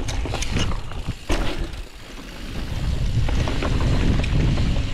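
Mountain bike rolling fast down a rooty dirt trail, with wind buffeting the microphone. Sharp clatters and knocks from the bike over the roots come in the first second and a half, then it goes briefly quieter around two seconds in before a louder steady wind rush builds.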